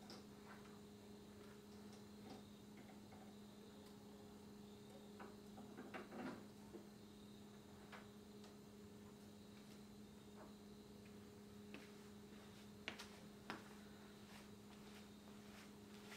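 Near silence: a steady low electrical hum with a few faint clicks and taps, a small cluster about six seconds in and two sharper ticks around thirteen seconds.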